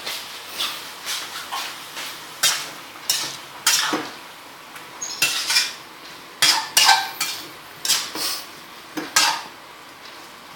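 A metal cooking spatula scraping and knocking against a pan in irregular strokes, roughly one to two a second.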